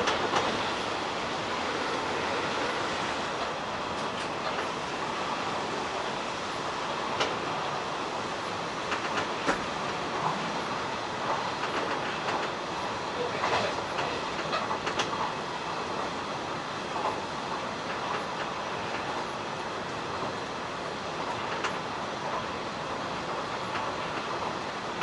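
Hanshin 1000 series electric train running between stations, heard from inside the car: a steady rumble of wheels on the rails, with scattered sharp clicks at irregular intervals.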